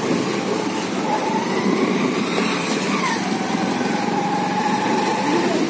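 A two-wheeler's small engine running under way, heard from the rider's seat among steady road and wind noise. Its note climbs slowly, then drops about three seconds in as the rider eases off.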